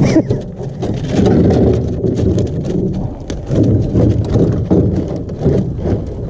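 Rustling and rubbing handling noise from a jacket sleeve brushing over the camera, with many small knocks and clatter against a metal boat.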